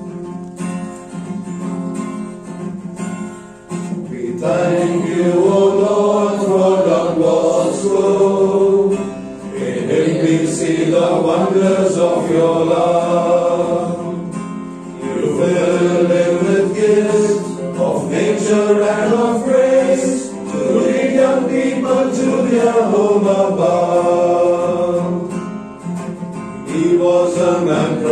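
Closing hymn with acoustic guitar accompaniment: the guitar plays alone for about the first four seconds, then several voices come in singing the hymn over it.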